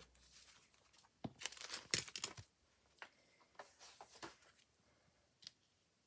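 Faint rustling and rubbing of paper and card as a hand smooths a sticker stencil sheet flat and handles the card. The sound comes in a few short scrapes, the loudest from about one to two and a half seconds in.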